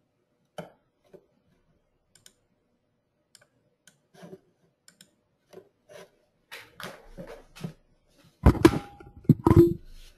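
Handling noise close to an open microphone in a small room: scattered light clicks and taps that grow busier, then a cluster of louder knocks and bumps near the end.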